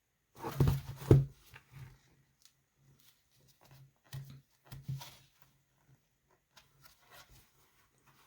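Handling noise of a children's board sound book: two sharp knocks about half a second and a second in, then softer taps and paper rustles as the book is handled and its pages turned.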